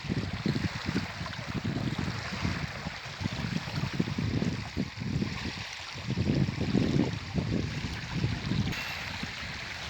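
Strong gusty wind buffeting the microphone in uneven low rumbles, over a steady rushing hiss of wind outdoors.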